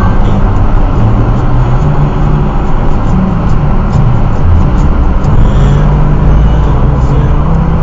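Steady low rumble of road, tyre and engine noise inside a car's cabin while it cruises at about 75 km/h.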